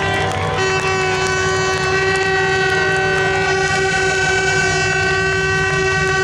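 A horn held in one long, steady blast after a short break less than a second in, over a low steady rumble.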